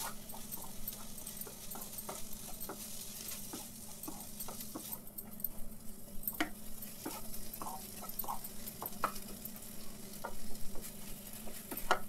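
Wooden spatula stirring and scraping a paneer and vegetable masala stuffing around a nonstick kadai, with irregular light taps and scrapes over a faint steady sizzle of frying.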